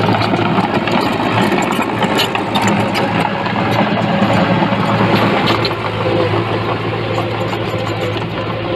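Diesel engine of heavy earthmoving machinery running steadily, with a few clanks in the middle.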